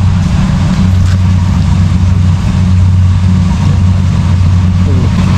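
Rice combine harvester's engine running steadily, an even low hum that holds without a break.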